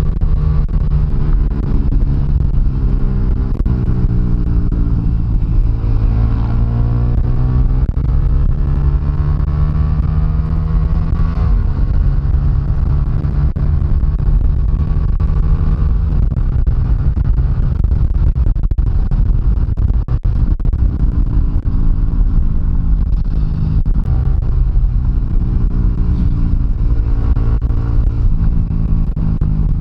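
Yamaha motorcycle engine heard from the rider's seat while riding. Its pitch climbs as the bike accelerates from about four seconds in, drops at a gear change near twelve seconds, runs steadily for a while, then climbs again near the end.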